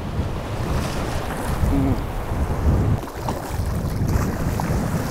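Wind rumbling on the microphone over surf washing through the shallows, with some faint splashing in the second half as a redfish thrashes at the water's edge and is grabbed by the tail.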